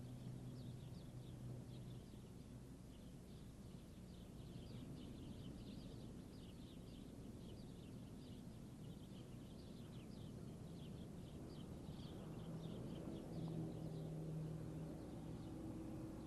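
Faint bird chirping, a quick run of short high chirps that goes on for about twelve seconds, over a low steady hum.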